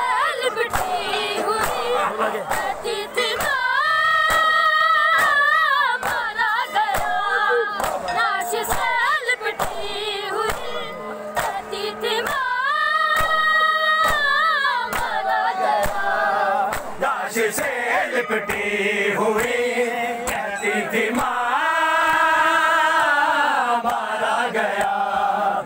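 Group of men chanting a Shia noha (a lament for the dead of Karbala) together, with long held, wavering notes about four, thirteen and twenty-two seconds in. Under the singing runs a steady beat of sharp slaps, the mourners' hands striking their chests (matam).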